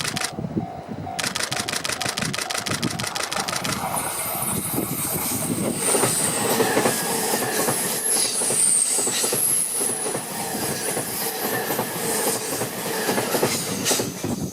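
Train passing a railway level crossing. The crossing bell rings in a steady repeating beat for the first few seconds. The train then runs through with wheels clacking on the rails and a high wheel squeal from about six seconds in.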